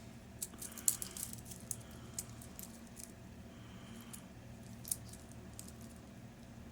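Faint, scattered small clicks and clinks of a wristwatch and its band being handled, with a sharper click about a second in and another near five seconds.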